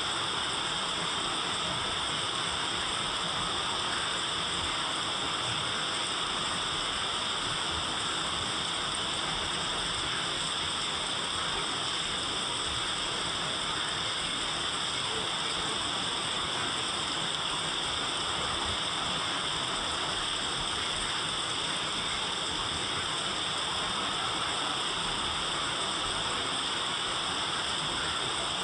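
Steady rain falling, an even hiss that holds at the same level throughout with no separate drops or gusts standing out.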